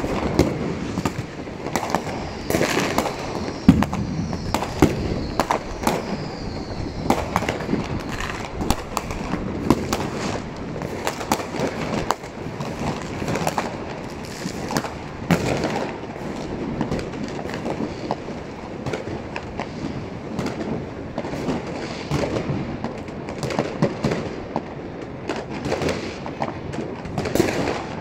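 Many fireworks going off at once: a dense, irregular run of bangs and crackles, with a faint falling whistle about three seconds in.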